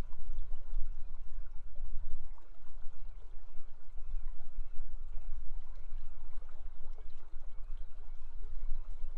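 Steady rush of flowing river water picked up by an outdoor wildlife-cam microphone, with a strong low rumble beneath it.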